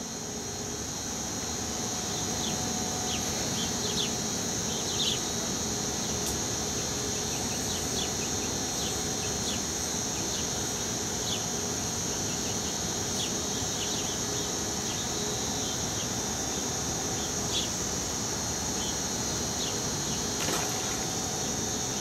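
Outdoor waterside ambience: a steady high-pitched insect drone with scattered short bird chirps over a constant background hiss.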